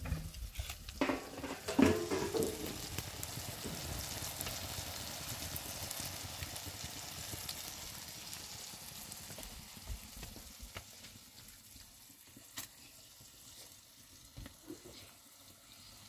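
Eggs and tomatoes sizzling in a frying pan over a wood fire. The sizzle is steady and fades gradually toward the end, with a few sharp clicks near the start and one more past the middle.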